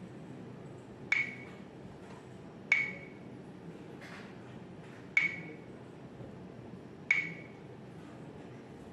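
Dashcam touchscreen display beeping as its menu buttons are tapped: four short, high pings, each with a brief ring, spaced one to two and a half seconds apart.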